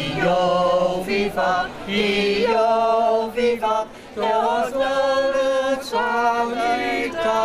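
Small mixed vocal group of three women and a man singing together in held notes, with brief pauses between phrases, the clearest about four seconds in.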